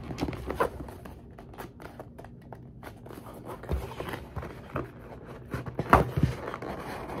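A small cardboard cube box being handled and opened by hand: scattered rubs, scrapes and light knocks, with a louder knock about six seconds in.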